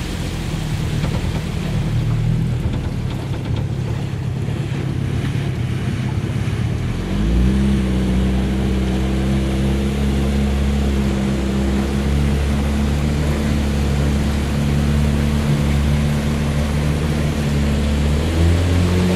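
Bayliner motorboat's engine running under way, with wind on the microphone and water rushing past. About seven seconds in the engine note rises as the throttle opens, then holds steady.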